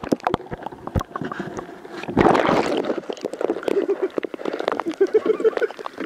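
Action-camera handling and water noise beside a kayak: repeated knocks and bumps on the camera, with water rushing over the microphone about two seconds in. In the second half comes a run of short pulsing sounds, about three a second.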